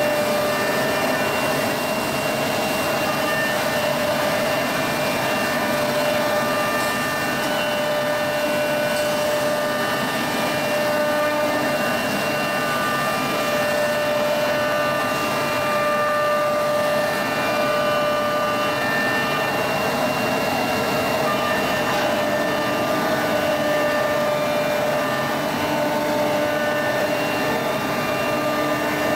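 CNC router production-line machinery running steadily: a constant machine whine with several held tones over an even rushing noise.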